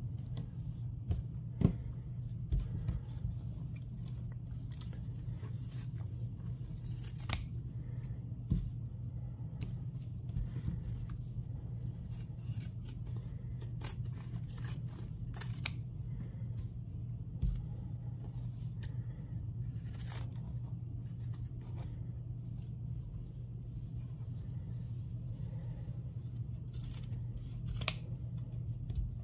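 Pinking shears cutting through the layered fabric and stabilizer of a stitched pouch: a run of irregular snips with sharp blade clicks, over a steady low hum.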